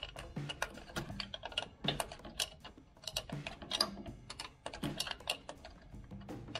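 Irregular light clicks and taps of hands working a plastic push-in air line fitting on a Land Rover air suspension compressor, pressing the collet and tugging at the line to free it.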